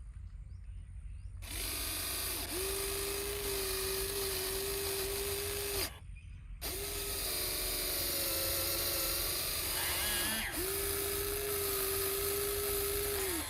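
Radio-controlled model excavator's motor running with a steady whine over a mechanical rattle. It starts about a second and a half in, cuts out briefly around the middle, then runs on with the whine dipping lower and rising again.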